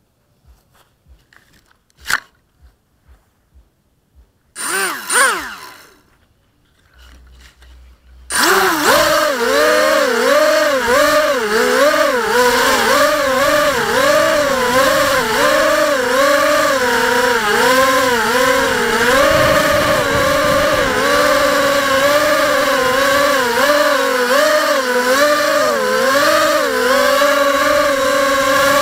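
FPV drone's electric motors and propellers: a brief spin-up and wind-down about five seconds in, then from about eight seconds a loud multi-tone whine in flight, its pitch wavering up and down with the throttle. Before that, faint clicks and one sharp click about two seconds in.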